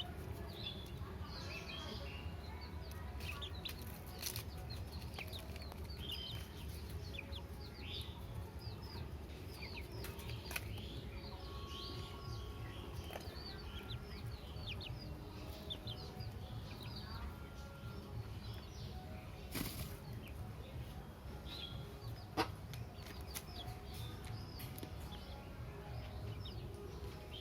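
Many birds chirping in short, quick calls all through, over a steady low hum, with a few sharp knocks, the loudest about 20 and 22 seconds in.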